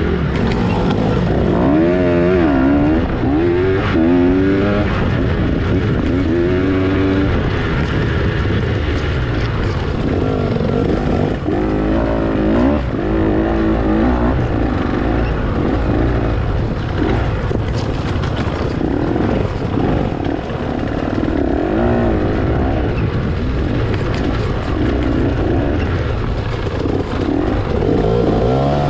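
Dirt bike engine revving, rising and falling in pitch again and again as the throttle is opened and closed through the gears.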